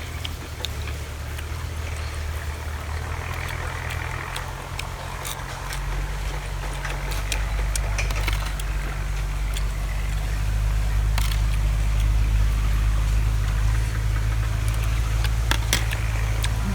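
A tractor engine running steadily with a low hum. It grows louder about 6 seconds in and again about 10 seconds in, as if it is coming closer. Scattered sharp clicks are heard over it.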